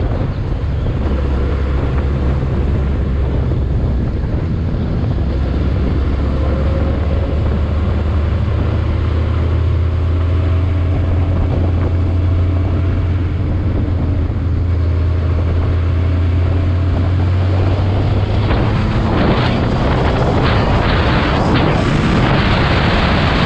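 A vehicle being driven: its engine holds a steady low drone under heavy wind rumble on the microphone. Near the end the drone fades and a louder rushing noise with scattered knocks takes over.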